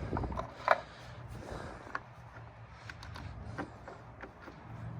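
Scattered light clicks and scrapes of plastic as a threaded fitting on an Intex sand filter is hand-tightened, with one sharp knock just under a second in.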